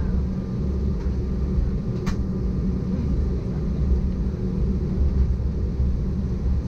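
Cabin noise of an Embraer ERJ-190 taxiing: a steady low rumble from its turbofan engines at taxi power. A faint short click comes about two seconds in.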